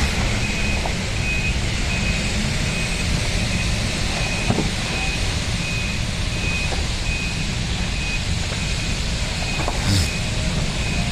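A short, high electronic beep repeating about twice a second, typical of a vehicle's reversing alarm, over a steady low rumble of engines. A couple of faint knocks come through, one midway and one near the end.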